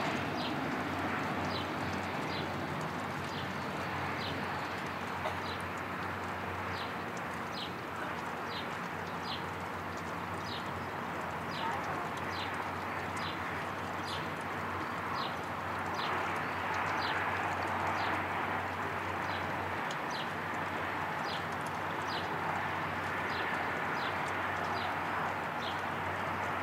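Distant jet noise from a taxiing Cessna Citation Bravo's two turbofans: a steady rush that swells a little in the middle and again near the end. Over it a short, high chirp repeats evenly, about one and a half times a second.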